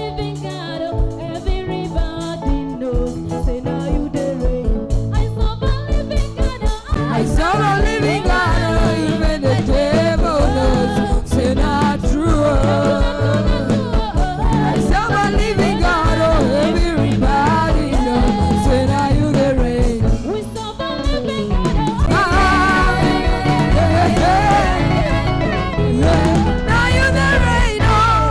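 Gospel song: singing voices over a band with a steady beat, the voices filling out from about seven seconds in.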